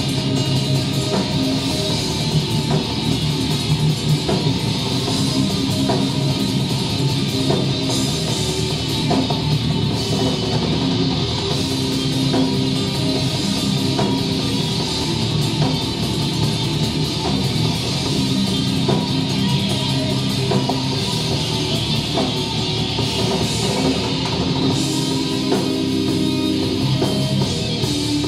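Heavy metal band playing live: electric guitars, bass and drum kit keeping up a continuous, steady-beat passage.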